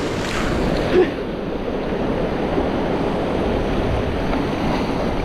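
Sea surf washing against a rocky shoreline: a steady rushing noise.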